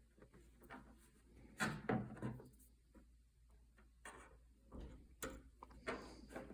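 Light handling noises of a telescopic fishing rod and its line being worked by hand: a few soft knocks, clicks and rubs, the loudest cluster about two seconds in and a few more near the end.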